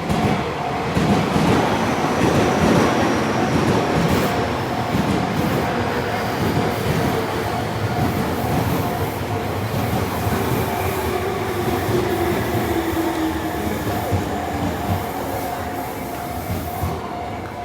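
Japanese level crossing with its alarm bell ringing steadily and repeatedly while an electric train runs over the crossing, its wheels clattering on the rails. The train is loudest in the first few seconds and then slowly fades, with a falling whine around the middle.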